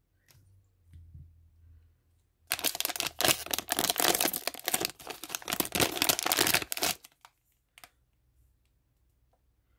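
A Breyer Horse Crazy Surprise blind-bag pouch being torn open and crinkled by hand: a dense run of crackling that starts about two and a half seconds in and stops at about seven seconds, followed by a few faint clicks.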